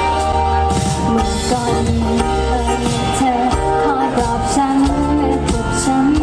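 A live pop band performing: a woman singing into a microphone over a band with drums keeping a steady beat.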